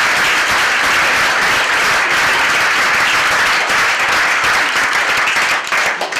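Crowd applauding: many hands clapping in a steady, dense patter that begins to thin out near the end.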